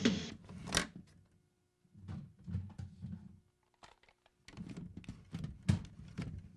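8-track tape cartridges being swapped in a Panasonic RS-836A player: the playing cartridge is pulled out, and the music stops with a sharp plastic click. A second cartridge is then pushed in with a run of clicks and a loud clunk near the end as it seats.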